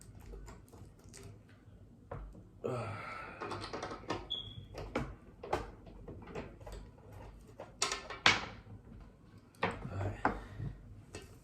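Handling noise of a screwdriver working the screws of a PC case's glass side panel: irregular clicks, taps and scrapes, with a brief squeak about four seconds in and the sharpest clicks around eight seconds.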